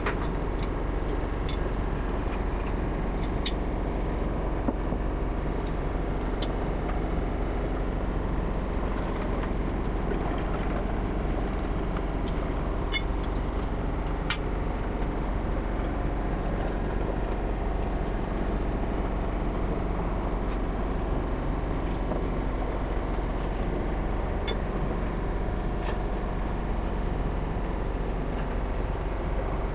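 Steady hum of workshop machinery with a few sharp metallic clicks and taps.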